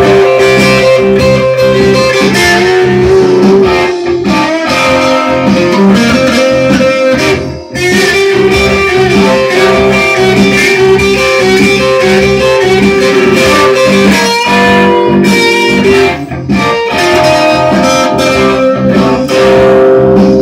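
Electric guitar, a Telecaster-style solid body played through a combo amp, playing blues lead lines of single and held notes, with a brief gap about eight seconds in.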